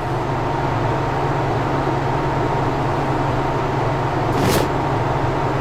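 Steady low mechanical rumble and hum, with one brief sharp sound about four and a half seconds in.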